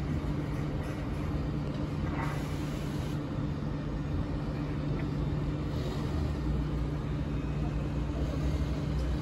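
Steady drone of slow street traffic with the Nancy TVR, a rubber-tyred guided tram, moving in road mode among queued cars; a constant low hum sits under it.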